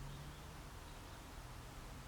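Quiet workshop room tone with a faint, steady low hum.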